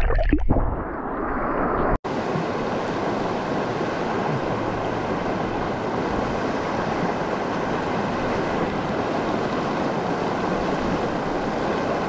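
Small mountain creek rushing steadily. The first two seconds are muffled with a low rumble, then the sound breaks off sharply and comes back as an even, steady rush.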